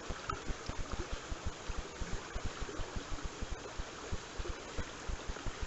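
Shallow creek water running steadily, with rapid, irregular low thumps against the microphone throughout.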